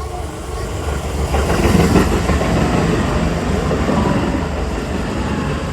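Keisei Chiba Line electric train passing over a level crossing: rumble and wheel clatter build from about a second in, are loudest around two seconds, and then run on steadily.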